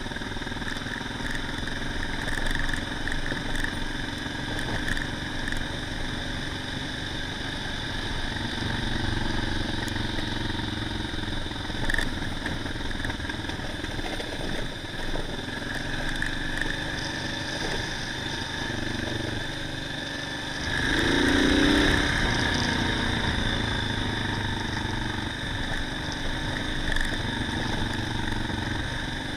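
Adventure motorcycle engine running on a dirt road, heard from the bike itself, the engine note rising and falling with the throttle. About two-thirds of the way through it gets louder and revs up for a couple of seconds.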